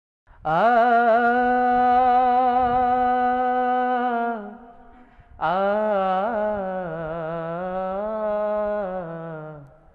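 A man's solo voice sings a wordless, unaccompanied opening to a Bengali hamd in two long held notes. The first is held level for about four seconds. The second, after a short breath, wavers up and down for about four seconds and fades near the end.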